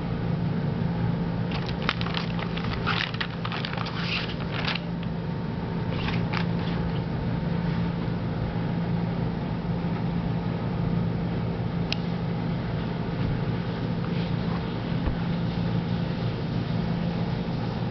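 A steady mechanical hum. Bursts of crackling run from about one and a half to five seconds in and again around six seconds, with a single click near twelve seconds.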